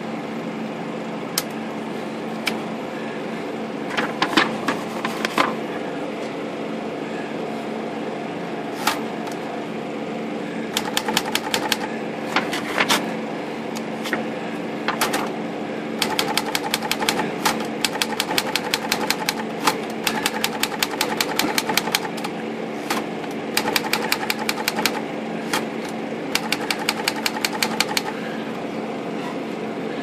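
Smith Corona Skyriter portable manual typewriter being typed on: a few scattered keystrokes at first, then quick runs of typebar strikes in rapid bursts with short pauses between them. It is test typing to check that the repaired left margin holds.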